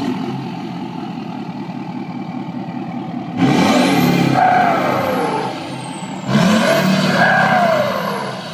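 2011–2014 Ford Power Stroke 6.7 L V8 turbodiesel idling at the exhaust tip, then revved twice, about 3.5 and 6.5 seconds in. Each rev brings a high whistle that climbs fast and slides slowly back down as the engine settles.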